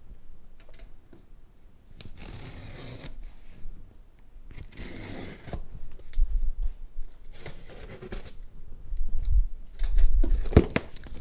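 Utility knife slicing through the tape and cardboard along the top of a shipping box: two cuts of about a second each, then the cardboard flaps pulled open and handled with thumps and clicks, loudest near the end.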